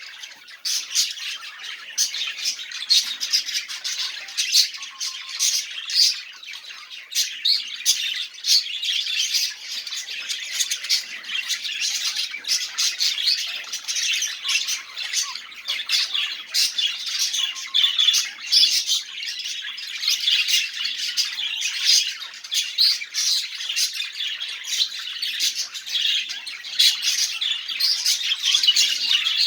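Budgerigars chattering and warbling without a break, a dense stream of quick chirps, clicks and harsh squawks.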